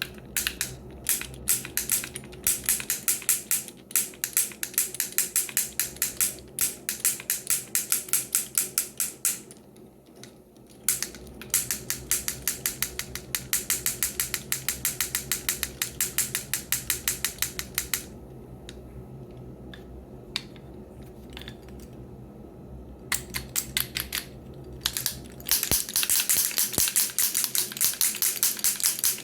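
Wooden baby rattle being shaken, giving fast trains of dry wooden clicks in three long spells with short pauses between them.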